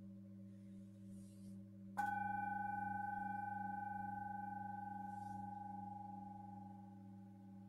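Tibetan singing bowls: the low hum of larger bowls still ringing, wavering slowly, then about two seconds in a higher-pitched bowl is struck once and rings on, fading slowly.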